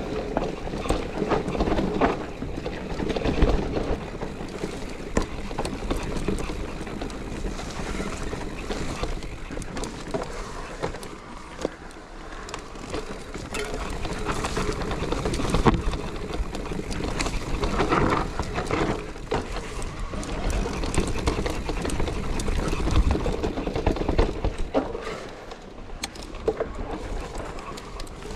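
Mountain bike riding over a rough trail: tyres rolling on the dirt and a constant scatter of clicks and knocks from the chain and frame over the bumps.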